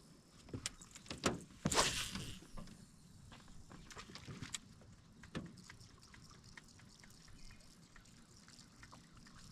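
Water trickling and lapping, with a few sharp knocks and a short louder rushing burst about two seconds in.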